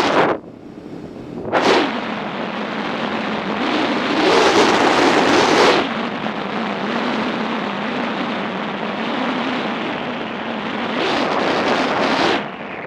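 Wind rushing over the camera microphone of a moving motorcycle, a loud hissing roar that swells and drops in gusts, with a brief surge about a second and a half in, a longer one in the middle and another near the end.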